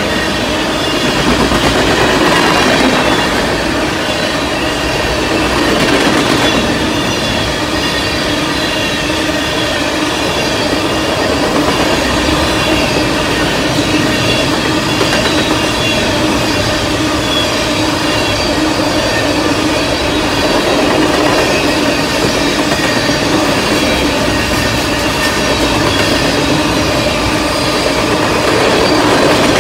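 Tank cars of an oil train rolling steadily past: steel wheels running on the rails with a continuous rumble and clatter, over which sit steady ringing tones.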